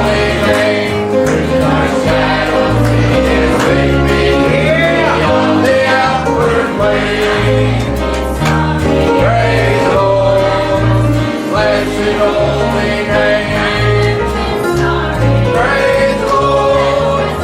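Congregation or choir singing a gospel hymn with instrumental accompaniment.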